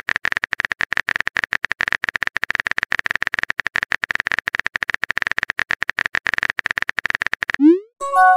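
Phone keyboard typing sound effect: a long run of rapid clicks. Near the end it stops, followed by a short rising pop and a message-arrival chime of a few tones as the new text appears.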